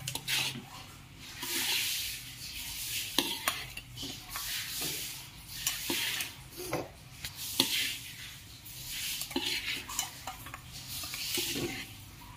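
Fried noodles being stirred and tossed in a hot metal pan: sizzling that swells with each toss, with the spatula scraping and clicking against the pan.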